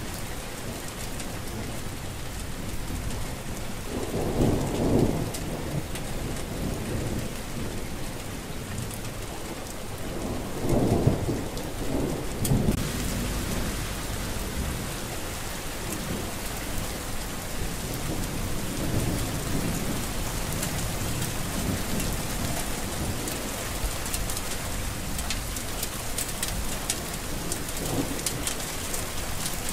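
Steady rain falling. Two low rumbles swell up through it, about four seconds in and again around eleven seconds.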